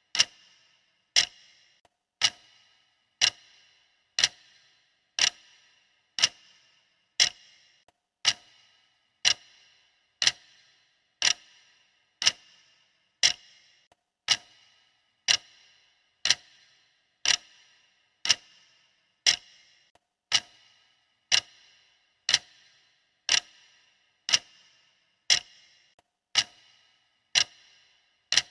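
Workout countdown timer's clock-style ticking sound effect: one sharp tick every second, steady and even.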